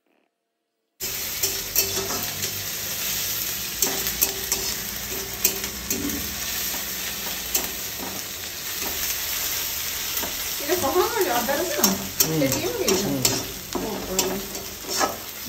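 Vegetables frying in hot oil in a pan, a steady sizzle with a spatula clicking and scraping as it stirs. The sound starts suddenly about a second in.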